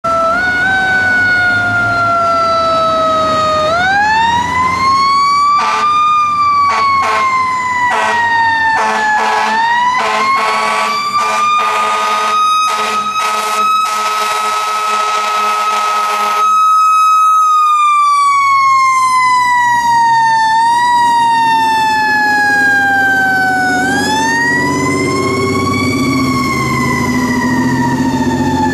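Fire truck (tower ladder) siren winding up and slowly coasting down in pitch, over and over, under the truck's engine. Between about five and sixteen seconds in, the air horns sound in a run of short blasts and then one long held blast.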